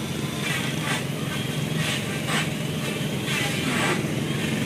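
Mitsubishi PS120 truck diesel engine running steadily at idle in the boat's hull, with a few short higher noises over the steady hum.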